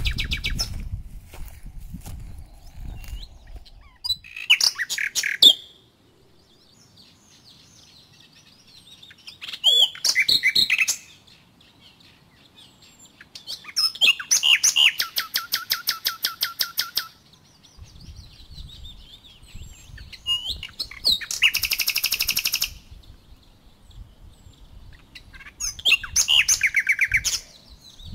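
Songbird song in five separate phrases about every four to five seconds, with a long fast trill about halfway through. A low rumble comes and goes underneath.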